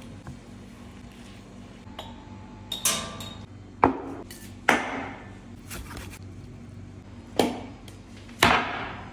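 About half a dozen sharp knocks and clinks as things are set down on a wooden serving board: a glass bottle put down with a clink, and metal tongs clacking. A steady low hum runs underneath.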